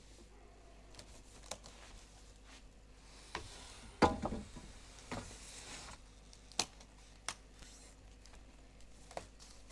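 Handling noises in a small room: scattered knocks and clicks, the loudest knock with a brief ring about four seconds in, and a rustle of packaging-like material from about three to six seconds in.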